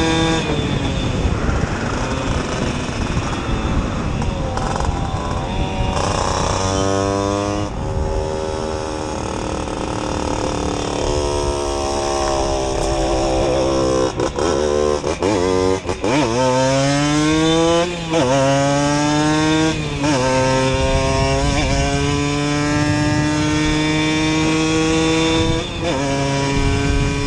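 Simson moped's 60 cc two-stroke engine with a Jack Motors exhaust, running hard under way. Its pitch climbs, drops sharply and climbs again several times, as when pulling up through the gears, then holds steady near the end.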